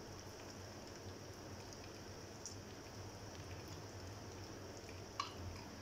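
Low steady background hiss with the faint sounds of a spoon spreading mayonnaise over a soft flour tortilla, and a small click of the spoon near the end.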